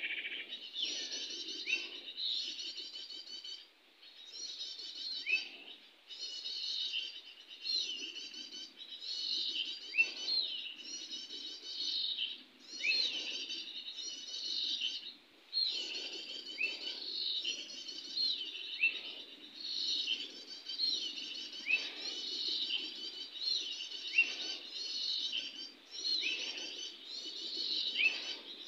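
A small songbird singing, repeating a quick, high chirping phrase roughly once a second, each phrase with a short rising note.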